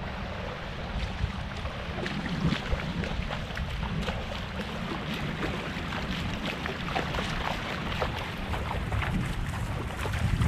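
Wind buffeting the microphone over shallow seawater, with irregular small splashes and sloshing of water as someone wades through it.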